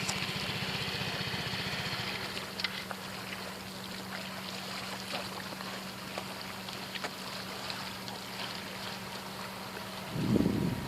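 Steady vehicle engine hum with road noise, with scattered small clicks. A brief louder low rumble comes near the end.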